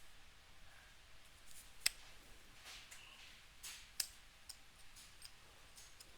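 Faint handling of a brass faucet stem assembly: two sharp clicks, about two and four seconds in, with lighter ticks and brief scrapes between them.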